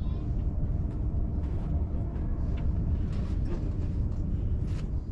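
Steady low rumble of a train, with a few faint clicks and knocks.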